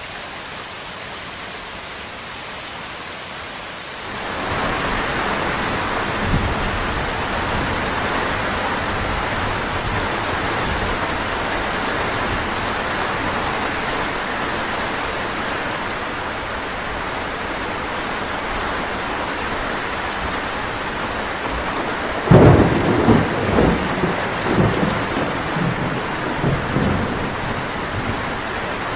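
Steady rain, quieter for the first four seconds and then suddenly louder. About two-thirds of the way through, thunder rumbles, rolling on in several peaks for about five seconds.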